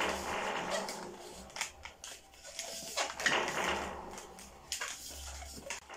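Inflated latex 260 pencil balloon being twisted by hand into a chain of bubbles: continuous rubbing and squeaking of the latex, with short scratchy bursts.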